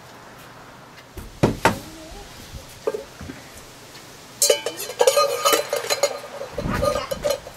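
A few sharp clicks, then from about halfway through a metal wire scraping and rattling through the hole of an empty tin can, which rings with a clattering metallic sound.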